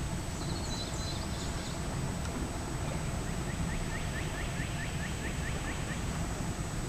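A bird singing a run of about eleven short rising notes, about four a second, from about three seconds in, with a brief higher chirp about half a second in, over a steady low rumble.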